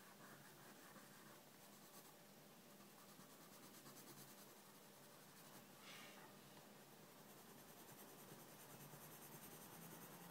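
Faint scratching of a pencil shading on sketchbook paper, in quick short strokes from about six seconds in.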